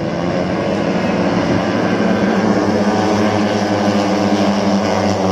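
Small-displacement racing motorcycle engines running at high revs, a steady droning pitch that grows slightly louder.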